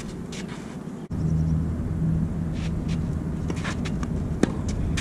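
A tennis racket strikes a ball once with a sharp pop near the end, over a steady low rumble that grows louder about a second in, with faint scuffs of shoes on the court.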